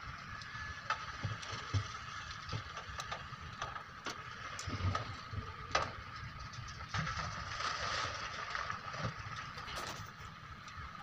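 Excavator diesel engine running steadily with a constant high whine, with scattered knocks and a louder clattering stretch about seven to nine seconds in.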